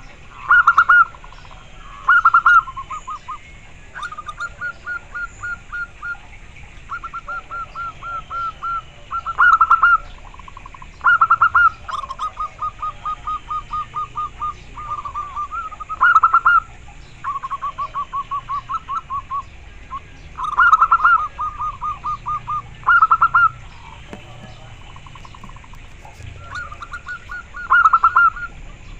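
Local zebra dove (perkutut) cooing: repeated phrases of rapid, staccato coo notes, over and over. Short loud phrases alternate with longer, softer runs of evenly spaced notes.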